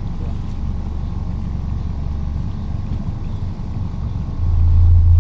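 Boat's outboard motor running at low speed, a steady low hum, which grows louder about four seconds in as the throttle is opened.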